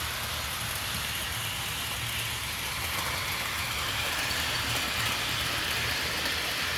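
HO scale Bachmann F9 A and B diesel locomotives with passenger cars running on a model track: the steady whir of the DC motor and the rumble of wheels on rail, growing a little louder about halfway.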